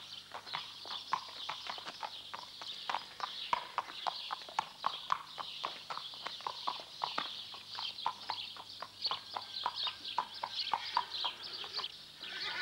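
Horse's hooves clip-clopping on hard paving as it is ridden, an irregular run of about three or four hoofbeats a second over a steady high hiss.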